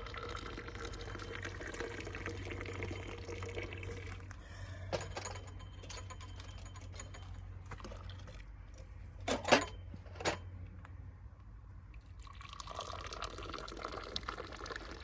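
Water running steadily, with two sharp knocks a little past the middle.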